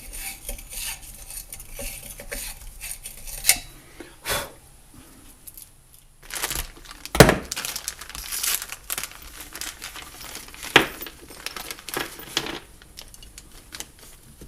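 A plumbing brush scrubbing corrosion out of trolling-motor parts: irregular scratchy scrubbing with several sharp knocks of the metal parts being handled, the loudest about seven and eleven seconds in.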